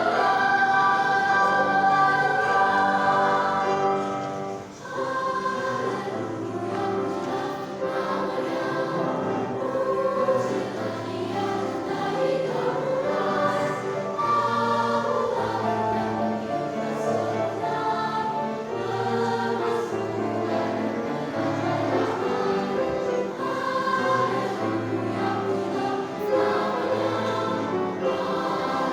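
Children's choir singing a church song, with a brief break in the sound about five seconds in.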